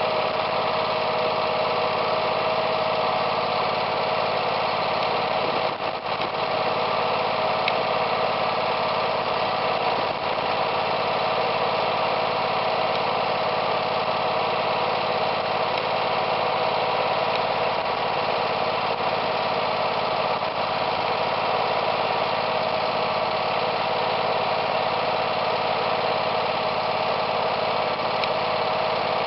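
Garden tractor engine idling steadily.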